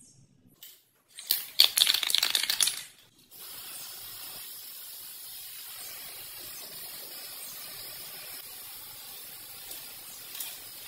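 Aerosol spray paint can rattling loudly for about a second and a half as it is shaken. It then sprays a steady hiss from about three seconds in.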